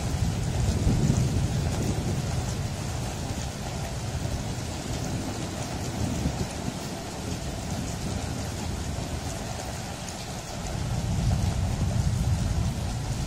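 Rain falling steadily, with low rolls of thunder: one swelling about a second in and another rolling in near the end.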